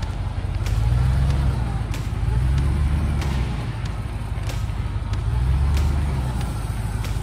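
Range Rover 4x4 driving slowly over a rough green lane: a low engine and tyre rumble that swells and eases every couple of seconds, with a string of sharp clicks and knocks about once or twice a second.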